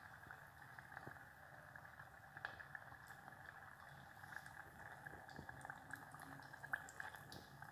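Hot oil sizzling faintly around a sausage roll frying in a pot, with scattered small crackles and pops.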